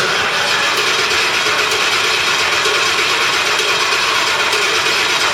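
Freshly rebuilt Ford Crown Victoria V8 being cranked on the starter alone, with the computer fuse pulled so it cannot fire, to pump oil through the engine. The steady cranking starts abruptly and is loud.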